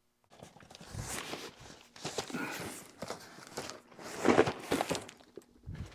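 Handling noise: about four short bouts of rustling and scraping as a clear plastic storage tote packed with cardboard boxes is moved about.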